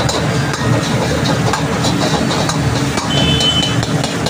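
Steady roar of a high-flame gas wok burner, with a metal ladle scraping and tapping against the steel wok every half second or so.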